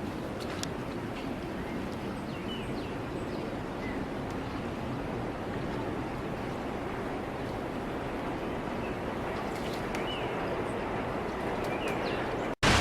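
Steady outdoor rushing noise, with a few faint, short, high chirps scattered through it.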